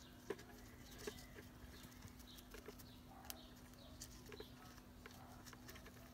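Near silence with a few faint, sharp clicks and taps of parts being handled as a starting capacitor is pushed into a pressure washer's motor housing. A faint steady low hum sits underneath.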